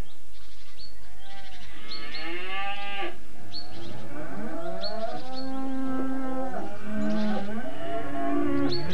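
Several cows lowing, their long calls rising and falling and overlapping one another.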